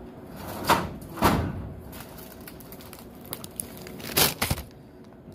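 Handling noises while a snack vending machine is restocked: a few short, sharp knocks and clatters with light rustling of packaging, two about a second in and two more around four seconds in.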